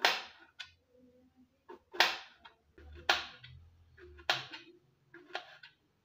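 Sharp knife slicing thin rounds off an unripe plantain, each cut ending in a crisp tap of the blade on a plastic board, roughly once a second with a few fainter taps between.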